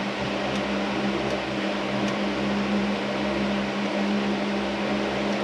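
Powered grease gun running steadily with a constant motor hum, pumping grease into a sway bar link's grease fitting.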